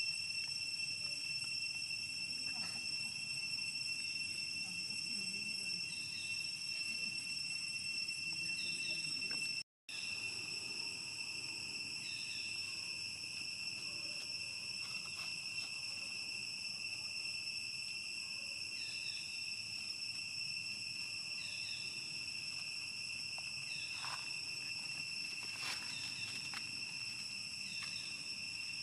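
Insects calling in a steady high-pitched drone, one unbroken tone with overtones. The drone cuts out completely for a moment about ten seconds in, and a few faint clicks sit under it.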